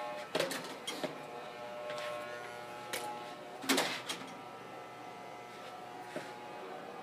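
Electric hair clippers humming steadily during a haircut, with a handful of sharp clicks and knocks, the loudest about four seconds in.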